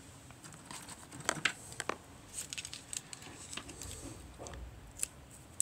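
Faint, scattered clicks and rustles of metal knitting needles and yarn being handled while the last stitch of a cast-off is worked, with a sharper click near the end.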